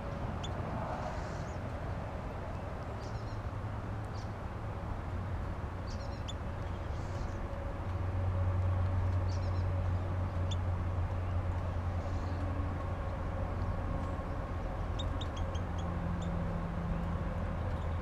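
Small songbirds giving short, high chirps now and then, with a quick run of several notes near the end, over a steady low rumble that grows louder about halfway through.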